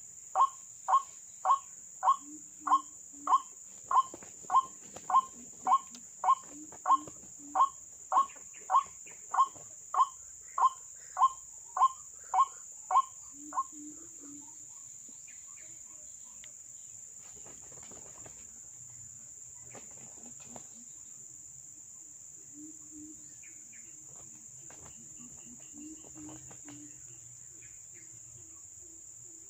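White-breasted waterhen calling: a loud, evenly spaced series of 'kwak' notes, nearly two a second, that stops about 13 seconds in, followed by softer low repeated notes. A steady high insect drone runs underneath.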